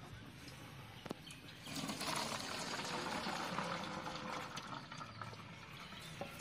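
Hot cooking water pouring and splashing out of a large pot into a perforated metal colander as boiled lung pieces are drained, building up about two seconds in and tailing off near the end. A single sharp knock about a second in.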